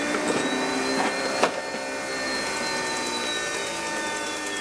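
JetCat P-160 model jet turbine running steadily at idle on its first run: a constant whine, with its highest tone drifting slightly up and then back down. A few light clicks sound in the first second and a half.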